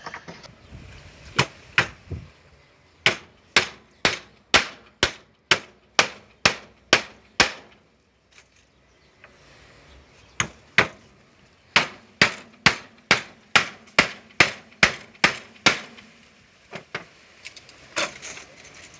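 Hammer driving nails into wooden planks: steady runs of sharp blows, about two a second, with a break of about three seconds midway.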